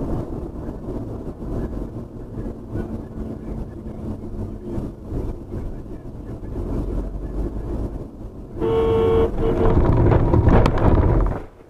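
Steady engine and road rumble of a moving car. Near the end a car horn honks, one longer blast and then a short one, followed by louder rumbling noise with a sharp knock, and the sound cuts off suddenly.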